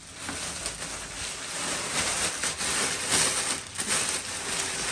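Plastic packaging rustling and crinkling as grocery packs are handled, with irregular crackles.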